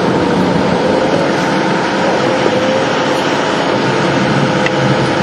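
An engine running steadily: a loud, constant drone with a faint steady hum in it that does not change.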